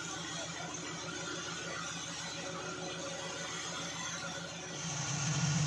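Off-road 4x4 vehicle's engine running steadily, then revving louder about five seconds in.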